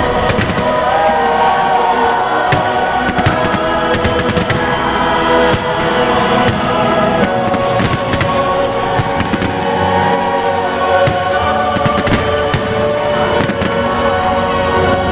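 A fireworks display with many sharp bangs going off irregularly, over loud music with a choir.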